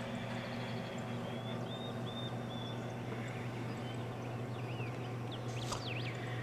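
A steady low hum with faint, short high chirps scattered through it, a cluster of them about a second and a half in and again near the end.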